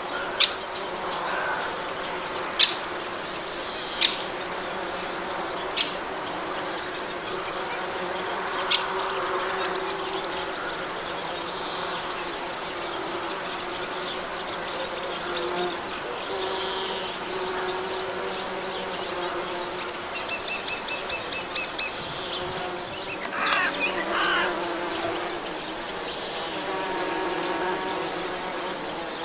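Bumblebees and honeybees buzzing, their drone drifting up and down in pitch as they fly past. A bird gives a few sharp chirps in the first nine seconds. About twenty seconds in comes a quick run of about ten ringing notes, followed by a brief wavering call.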